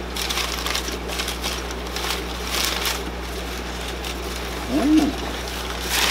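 Crumpled packing paper crinkling and rustling in several short bursts as it is pulled out of a box, over a steady low hum. A brief pitched sound stands out about five seconds in.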